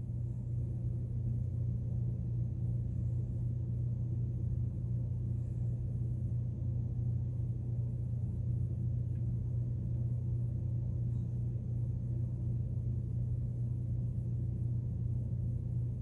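Steady low background hum with no speech: room tone.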